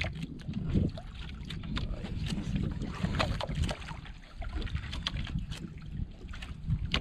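Wind rumbling on the microphone and water lapping around a small outrigger boat, with scattered light ticks and splashes as a handline is jigged over the side.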